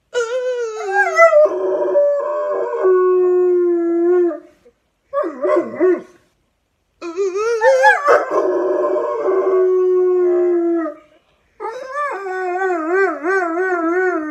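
Black German Shepherd howling: three long howls with a short one between the first two. Each starts higher, slides down and holds a steady note, and the last one wavers up and down.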